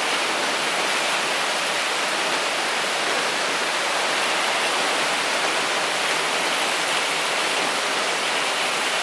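Heavy typhoon rain pouring steadily in strong wind, a dense even hiss.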